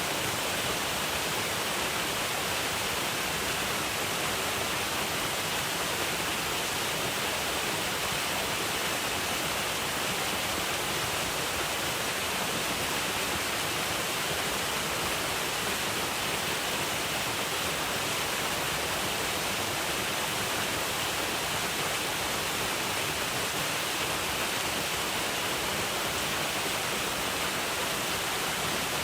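Waterfall: a steady rush of falling water with no change or break, its hiss strongest in the upper-middle range.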